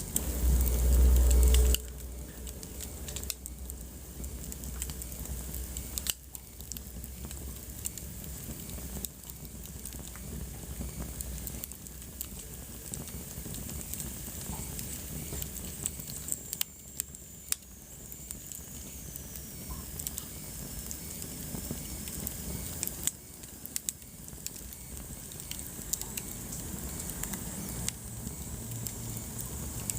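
Wood fire crackling in a fireplace: irregular pops and snaps over a steady hiss. A low rumble fills the first two seconds, and a thin high whistle slides downward about halfway through.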